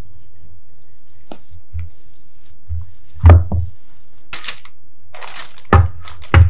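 Wooden rolling pin knocking on the worktop and baking tray as yeast dough wrapped around it is lifted and unrolled, with parchment paper rustling under the dough. Two knocks come about halfway through and two more near the end, over a low steady hum.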